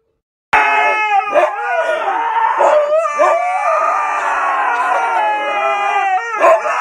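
Husky-type dog howling, one long wavering yowl whose pitch slides up and down, starting about half a second in.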